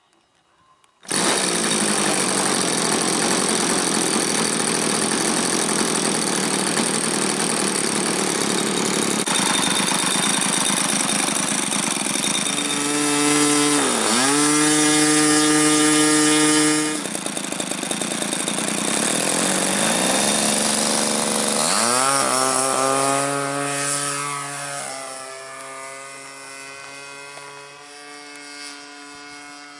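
Evolution 20cc two-stroke gas engine on a radio-controlled model airplane running at high revs. Its pitch dips briefly twice, about halfway and about two-thirds of the way through, and recovers each time. Over the last several seconds the engine sound fades as the plane flies off.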